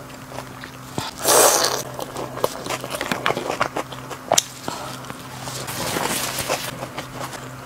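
Close-miked eating sounds: mouth clicks and chewing of broth-soaked maoxuewang, with a short loud noisy rush a little over a second in and a longer, softer rustle in the second half.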